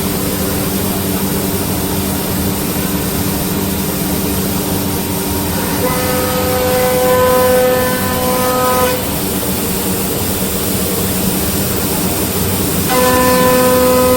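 Woodworking CNC router running, its spindle making a steady machine hum. A higher whine with overtones comes in about six seconds in, drops out about three seconds later, and returns near the end.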